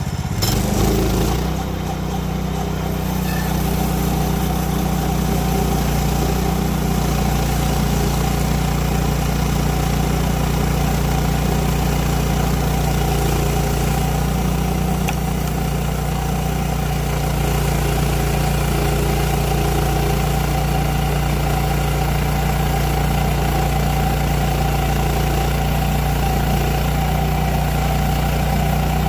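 Gasoline engine of a Woodland Mills portable bandsaw sawmill running steadily. Its note shifts briefly in the first couple of seconds, then holds even.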